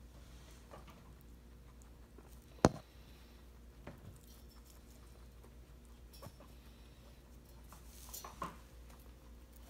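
Guinea pigs shuffling in a wire-grid cage while being hand-fed through the bars: faint light patter and rustling, with one sharp knock about two and a half seconds in, and a few softer knocks and clicks later, two close together near the end.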